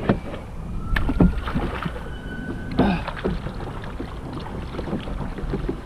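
Knocks and handling noises on a plastic fishing kayak, with water moving around the hull: several sharp knocks, the strongest near the start, about a second in and near three seconds.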